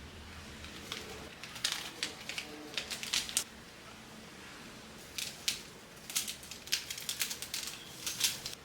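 Kitchen food-preparation handling sounds: two runs of quick, sharp clicks and crinkles, separated by a short pause.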